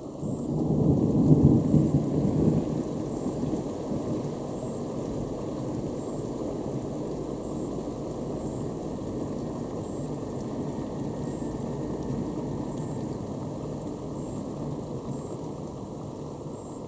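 Thunder: a loud peal about a second in, followed by a long low rolling rumble that slowly fades.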